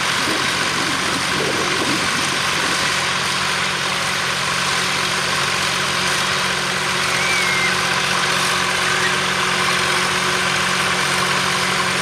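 Vintage tractor engines, a Massey Ferguson 135 and a grey Ferguson TE20 among them, running steadily.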